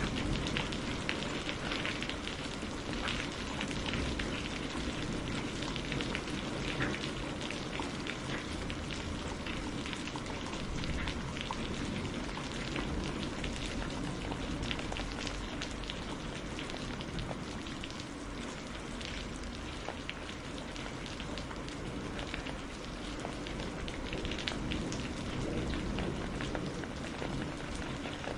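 Heavy rain falling steadily, with many close, sharp drop impacts on a hard surface.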